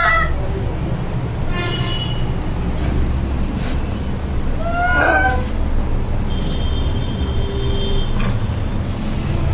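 Two short animal calls, each rising and then falling in pitch, one at the start and one about five seconds in, over a steady low traffic rumble.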